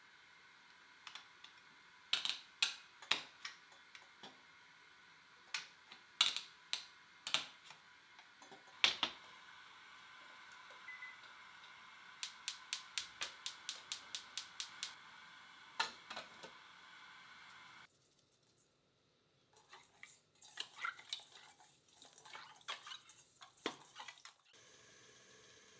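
Sharp clicks and clinks as eggs go into a stainless steel pot, then a gas hob's igniter clicking about four times a second for a few seconds. After a brief pause, hands rub and scrub inside a small stainless pot, with a steady hiss of water near the end.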